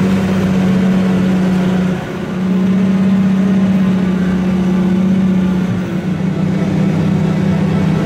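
Case IH tractor's diesel engine running steadily at working speed, heard from inside the cab, with a brief dip about two seconds in.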